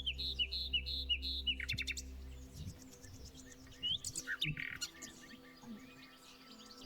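Songbirds singing: a quick run of about six repeated short downslurred whistled notes in the first two seconds, then scattered shorter calls and chirps.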